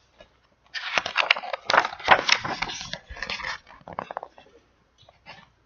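Paper rustling and crackling for about three seconds, with many small clicks: the pages of a picture book being handled and turned.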